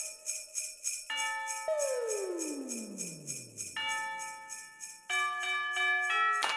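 Christmas-style music: sleigh bells shaking in a quick, even rhythm over sustained chime-like chords that change every second or so, with a long downward swoop in pitch about a third of the way in.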